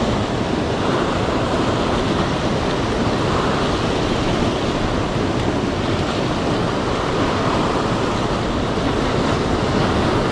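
Surf washing and breaking on a rocky shore: a steady, loud rushing of water.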